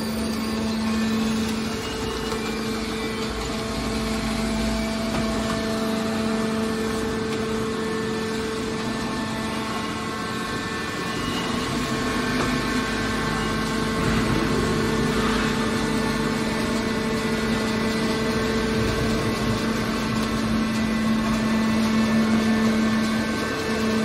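Hydraulic scrap metal baler's power unit (electric motor and hydraulic pump) running with a steady hum.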